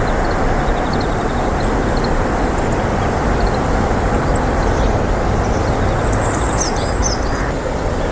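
Steady loud rushing background noise with short high chirps of small birds scattered through it, busiest about six to seven seconds in.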